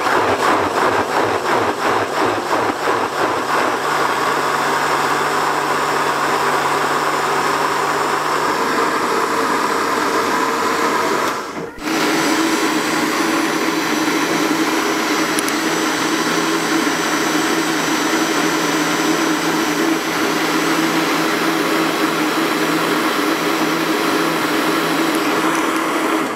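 Electric blender running at speed with a jar of grated raw mango and water. It is uneven for the first few seconds, then settles into a steady whir. It cuts out for a moment about halfway through, starts again, and stops near the end.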